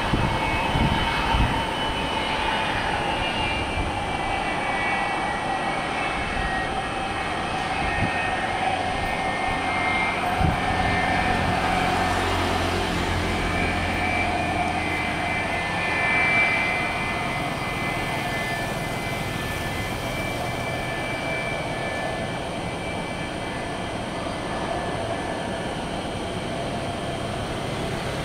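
McDonnell Douglas MD-83's rear-mounted Pratt & Whitney JT8D turbofans whining steadily at taxi power as the airliner turns onto the runway. The whine's pitch drifts slowly lower, with a low rumble underneath for a while in the middle.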